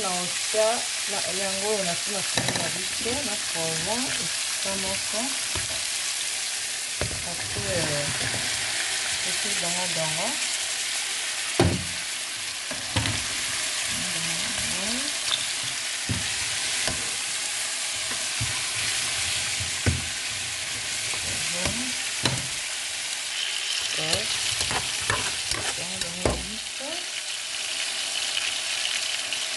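Okra, onion and green pepper sizzling in hot oil in a frying pan, stirred with a metal spatula. A few sharp knocks of the spatula against the pan stand out over the steady sizzle.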